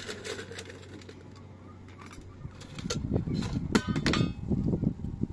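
Metal and glass kitchenware knocking and clinking as it is handled. Quiet at first, then a string of knocks and clinks starts about halfway through.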